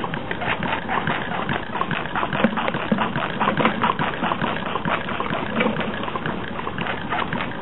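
Small homemade can-type Stirling engine running, its wire crank and flywheel giving a dense, irregular clicking and rattling over a steady noise.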